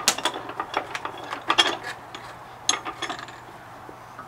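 Bench vise being tightened to clamp a 3D-printed AN-fitting install tool: a string of irregular sharp clicks and knocks.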